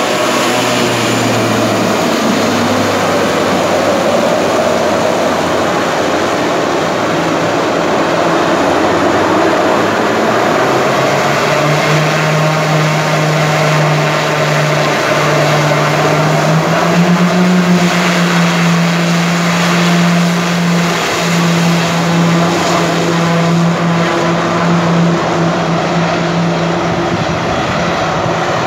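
Twin-engine turboprop airliner's engines and propellers running as it turns at the top of the runway, then spooling up to takeoff power about 11 seconds in with a rising, then steady drone as it rolls down the runway for takeoff. The drone fades near the end.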